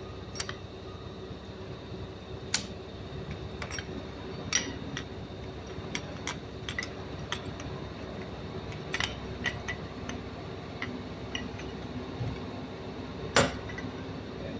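Scattered light metallic clinks and taps as a diesel piston, connecting rod and piston pin are handled and set down on a workbench, with a sharper knock about two and a half seconds in and the loudest one near the end. A steady low hum runs underneath.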